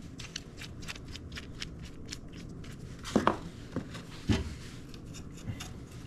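Light metallic clicks and rustling of hands handling a Watsco A2 line-piercing valve, seating its two halves around an air conditioner's copper suction line, with a couple of louder clicks about three and four seconds in.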